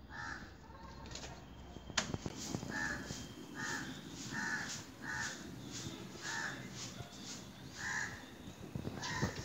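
Crows cawing over and over, a short harsh caw about every second from several birds. A single sharp click about two seconds in.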